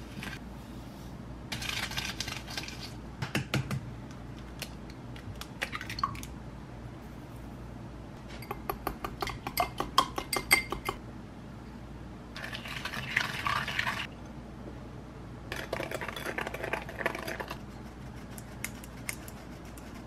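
A whisk beating creamed butter and sugar in a glass mixing bowl, in several separate bursts of quick scraping strokes with sharp clinks of the whisk against the glass; a fast run of clinks comes about halfway through.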